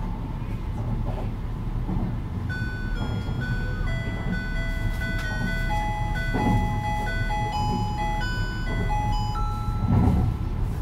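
Onboard chime melody played over the PA system of a Kintetsu 80000 series Hinotori limited express, the tune that comes before a station-arrival announcement. It starts about two and a half seconds in as a string of clear electronic notes, over the train's steady low running rumble.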